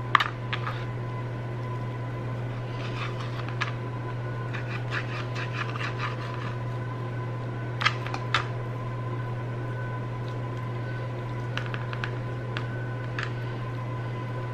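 Chef's knife clicking and tapping against a plastic cutting board as pork tenderloin is cut into chunks: scattered sharp clicks with short runs of lighter ticks, the loudest near the start and about eight seconds in. A steady low hum with a faint whine runs underneath.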